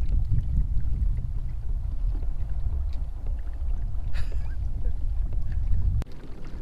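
Fishing kayak under way on calm water: a steady low rumble of wind on the microphone and water moving along the hull, which drops off abruptly near the end.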